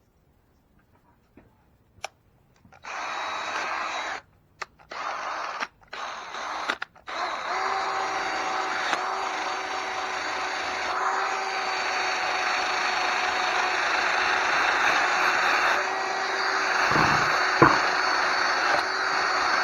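Power tool spinning a wire wheel against the Ford T19 transmission case to strip rust. After a couple of clicks it starts and stops a few times, then runs steadily with a steady motor whine, with a knock near the end.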